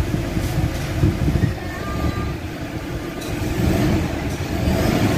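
Toyota Hilux Vigo's common-rail diesel engine running at about idle, heard from inside the cab: a steady low rumble that eases a little midway and builds again near the end.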